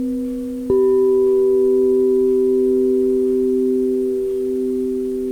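Meditation music of sustained, pure ringing tones. A new, higher tone is struck sharply about a second in and slowly fades, over a steady lower drone.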